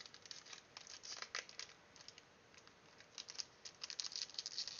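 Foil trading-card booster pack crinkling as it is handled and torn open by hand, in quick irregular crackles.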